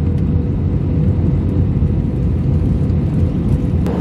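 Jet airliner cabin noise heard from a window seat in flight: a steady low rumble of engines and airflow with a thin steady hum over it. The sound changes abruptly just before the end.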